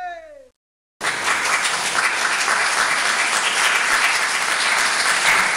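Applause: a group of people clapping steadily, starting abruptly about a second in after a brief silence and cutting off sharply at the end. A voice trails off just before the clapping.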